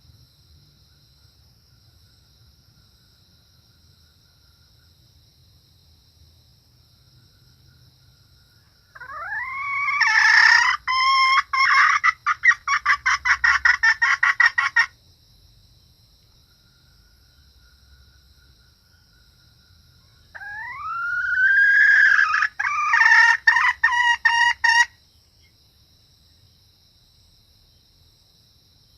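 Female junglefowl calling twice, each call a rising note that breaks into a fast run of clucking cackles; a hen's call that draws in cock birds. A steady high insect drone runs underneath.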